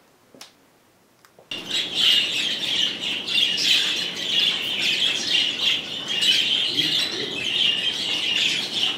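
Many budgerigars chirping and chattering together, a dense continuous twittering that cuts in suddenly about a second and a half in.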